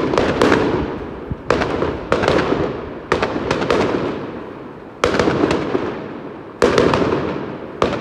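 Aerial fireworks going off in a rapid string: about nine sharp bangs at uneven intervals of half a second to a second and a half, each trailing off in an echo.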